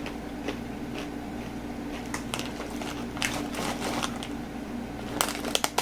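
Crisp crunching of fried kangkong (water spinach) chips being chewed, a scatter of sharp cracks that grows louder and denser near the end.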